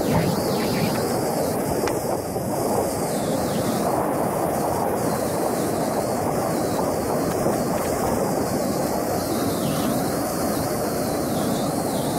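Muddy flash-flood water rushing down a wadi in full spate, a steady unbroken rush.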